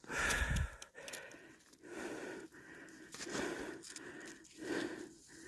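A person's heavy breathing, slow swells about every second and a half, out of breath after a steep climb. A brief low thump in the first second.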